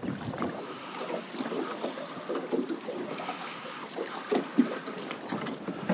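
Sea water lapping and splashing irregularly against a plastic kayak hull on open ocean swell.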